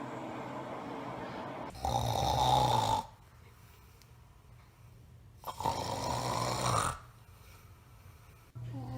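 A man snoring: two loud rasping snores about three and a half seconds apart, with quiet pauses between them, and another starting near the end.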